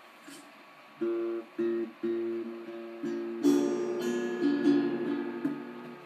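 Acoustic guitar played by hand: a few single plucked notes starting about a second in, then louder strummed chords ringing out from about halfway.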